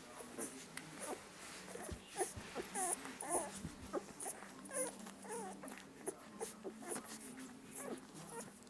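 Newborn puppies squeaking and whimpering while they nurse at their mother: many short, thin squeaks that bend up and down in pitch, with small wet suckling clicks in between. The squeaks come thickest in the middle.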